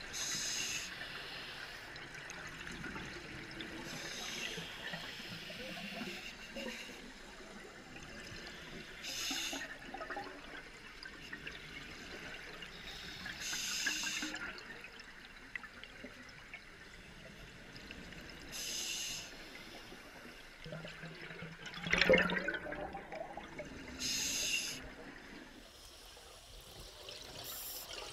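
Scuba regulator exhalations heard underwater through a camera housing: a hiss of bubbles about every four to five seconds with each breath out, over a low steady rush of water. One louder sharp knock about two thirds of the way through.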